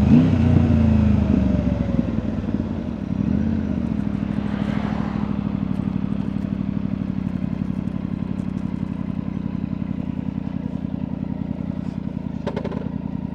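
Triumph Tiger 900's three-cylinder engine through an Akrapovic exhaust, dropping in revs over the first few seconds, giving one short throttle blip about three seconds in, then settling into a steady, evenly pulsing idle.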